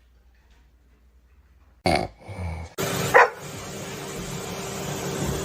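A dog barks once, a little over three seconds in, over a steady hiss and hum, after a sudden burst of noise about two seconds in.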